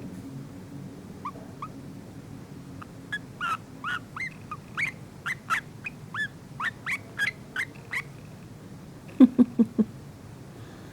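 Pet yellow-vented bulbul making a run of short, soft chirps, each a quick rise-and-fall note, about two a second. Near the end come four quick, louder low sounds.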